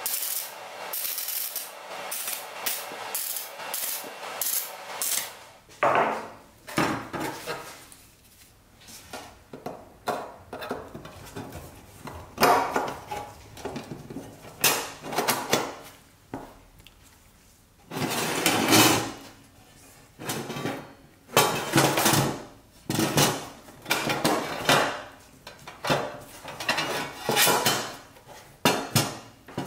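Crackling of a small welder tack-welding thin sheet steel for the first few seconds. Then a thin sheet-metal dump-truck bed is handled and set down on a steel workbench, in a string of short metallic clanks and scrapes.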